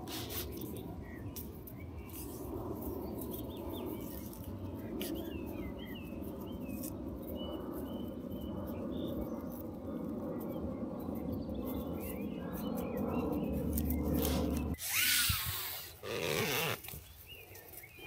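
Outdoor woodland sound: a steady low rush with small birds chirping now and then, broken near the end by two short, loud bursts of noise.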